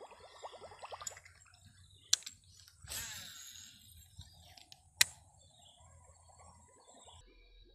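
Baitcasting reel during a cast: a sharp click, then about a second later a whir of line spinning off the spool that fades away, then a second, louder sharp click as the reel is re-engaged. Rapid even ticking of the reel being wound runs through the first second.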